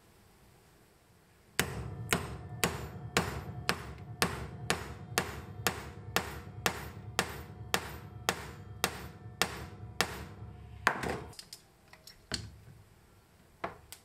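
A hammer strikes a hammer-type lug crimper about 17 times, evenly, roughly twice a second, crimping a copper lug onto heavy 6-gauge (16 mm²) copper cable on a wooden block. The strikes stop a little before three-quarters of the way through, and a few lighter knocks and clicks follow as the tool is handled.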